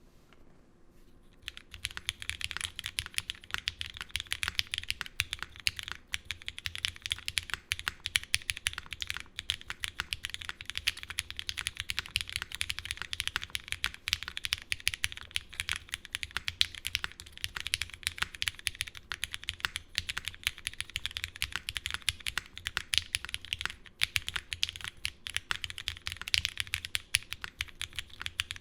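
Continuous fast typing on a custom F1-8X 722 mechanical keyboard with lubed, filmed Cherry Hyperglide MX Black linear switches, GMK keycaps and a full aluminum plate. The keystrokes are dense and steady and start about a second and a half in.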